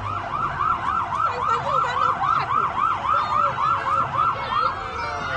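Emergency vehicle siren in rapid yelp mode, its pitch sweeping up and down about four times a second, switching near the end to a slower rising wail.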